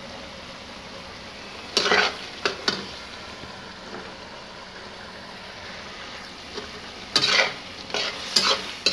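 Metal spatula stirring and scraping chicken karahi in a large metal karahi, over a steady sizzle from the simmering gravy. It gives a few scrapes about two seconds in, then a quick run of them near the end, as the just-added spices are stirred in.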